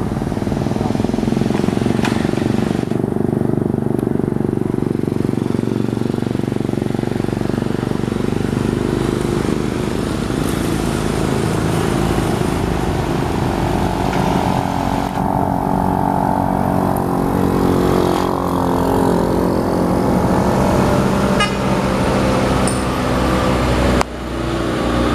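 Road traffic on a hill: truck and motorcycle engines running as they pass, with a steady engine hum standing out from about halfway through.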